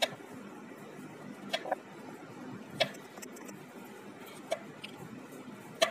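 Kitchen knife slicing peeled potato into rounds, the blade knocking on a wooden cutting board in about six or seven sharp taps at irregular intervals.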